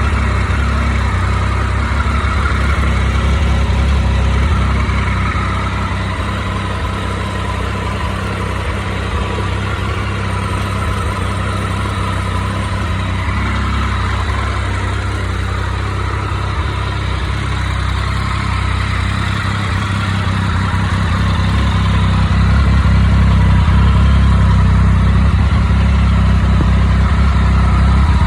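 2006 Triumph Speed Triple's 1050 cc three-cylinder engine idling steadily, being warmed up before an oil change; it grows a little louder in the last few seconds.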